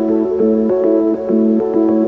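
Background music: a calm ambient synthesizer tune with a steady pattern of repeating keyboard-like notes, a few notes a second.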